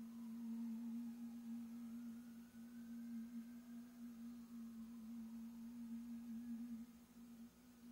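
A faint sustained musical tone held at one pitch, wavering slightly and thinning out about seven seconds in, with fainter sliding tones above it.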